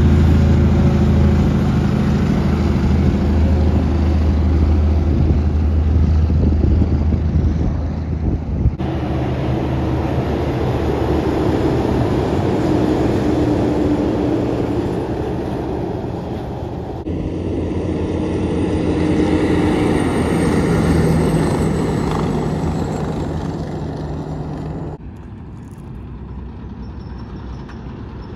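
Heavy diesel trucks and road trains passing at highway speed: a steady engine drone with tyre and road noise. The sound shifts abruptly three times as it jumps from one truck to the next, and is quieter near the end.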